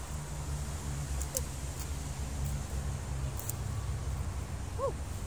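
A steady low rumble, with faint rustling and a few light clicks of hands picking through plastic litter and dry debris on the ground; two short chirps, one early and one near the end.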